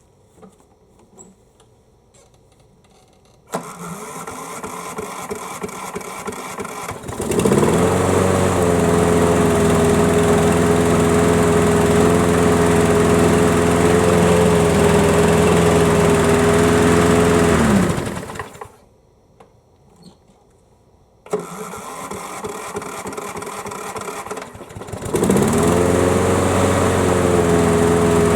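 Craftsman mower's small gasoline engine started with the key: the electric starter cranks for about three seconds, the engine catches and runs steadily, then is shut off and winds down. After a pause there is a click, and it is cranked again and fires. It starts readily, though the owner feels the battery needs charging.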